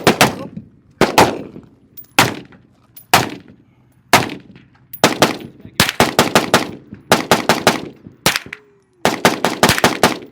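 Gunfire on a shooting range: single shots about a second apart, then several quick strings of shots fired in rapid succession.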